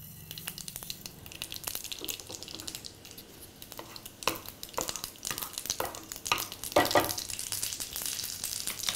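Mustard seeds sizzling in hot oil in a nonstick frying pan while being stirred with a wooden spatula. From about four seconds in, several sharp pops break through the hiss as the seeds begin to splutter, the sign that the tempering oil is hot enough.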